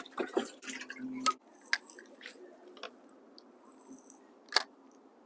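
Handling noise from fishing gear: rustling in the first second or so, then a few separate sharp clicks and knocks, the loudest near the end.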